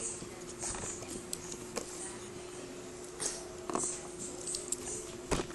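Light handling sounds of a plastic Kinder Joy cup and toy being moved on a table: scattered soft clicks and rustles, one sharper tap near the end, over a steady hum.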